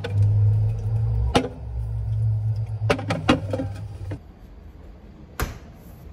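Drinks being set down on a refrigerator shelf, giving several sharp knocks and clinks over a low hum that stops about four seconds in. Near the end comes a single thump as the fridge door is pushed shut.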